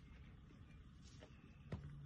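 Near silence: a faint low rumble, with one sharp click about three-quarters of the way through.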